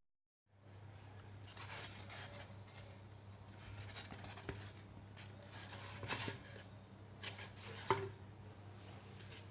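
Faint handling noises from hand craft work, with scattered small clicks and rubs, the sharpest about eight seconds in, over a steady low electrical hum.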